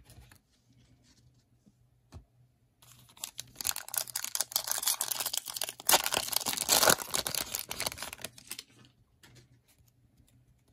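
A foil Panini Prizm trading-card pack crinkling and tearing as it is ripped open by hand, starting about three seconds in and lasting some six seconds, loudest in the middle with a sharp rip about six seconds in. A few faint clicks follow as the cards are slid out.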